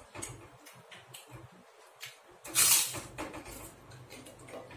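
Close-up eating sounds of a person eating rice and fried food by hand: many small wet chewing and lip-smacking clicks, with one louder noisy burst about two and a half seconds in lasting about half a second. A faint steady low hum runs underneath.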